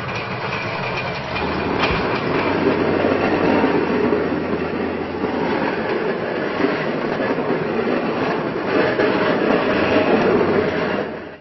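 A vehicle pushing a Plow Buddy snow plow: the steel blade scrapes steadily through snow over a low engine drone. The sound cuts off abruptly at the end.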